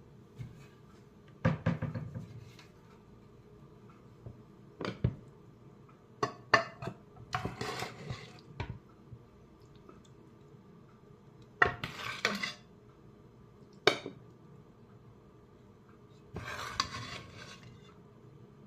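A utensil clinking and knocking against a cooking pot and glass Pyrex containers as soup is spooned out. The knocks come at scattered moments, with a few longer scrapes.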